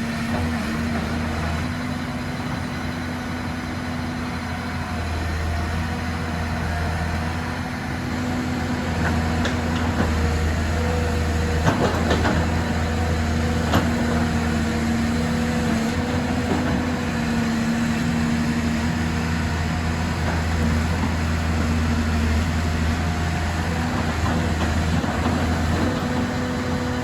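Excavator's diesel engine running steadily, with a couple of sharp knocks about halfway through.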